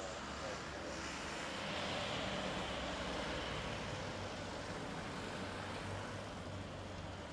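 Airbus A330-300 jet engines running at takeoff power as the airliner rolls down the runway, heard from across the airfield: a steady rushing noise with a low hum beneath, swelling slightly about two seconds in.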